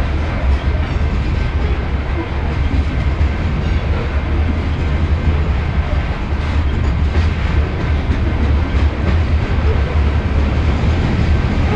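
Train rolling by on BNSF track, a steady noise of wheels on rail with some clickety-clack, unbroken and even in level.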